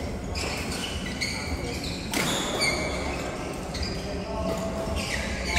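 Doubles match play on an indoor court: a run of sharp, irregularly spaced hits with players' voices.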